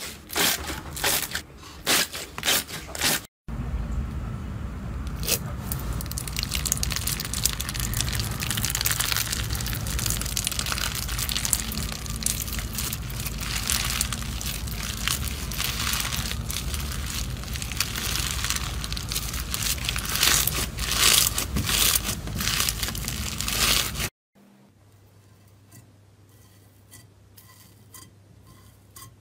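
Crunchy slime being squeezed and poked: first a run of sharp pops and clicks, then about twenty seconds of dense crackling and crunching. After a sudden cut it gives way to a much quieter stretch with faint light ticks.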